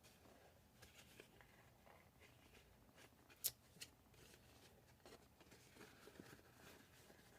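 Faint handling of card stock: paper rustling and sliding as a twist-and-turn fold card is worked by hand, with a sharp tap about three and a half seconds in and a smaller one just after.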